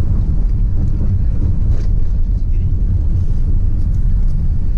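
Steady low rumble of engine and tyres inside the cabin of a Toyota HiAce minibus on the move.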